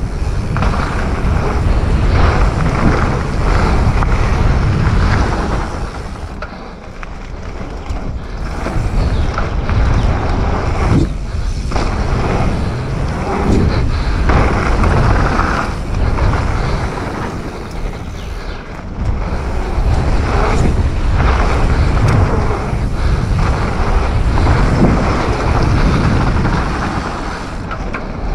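Wind buffeting a GoPro's microphone and tyres running over dirt as a Commencal Supreme DH29 downhill mountain bike rides a flow trail at speed, with knocks and rattles from the bike over bumps. The rush eases off briefly twice, about a quarter and two-thirds of the way through.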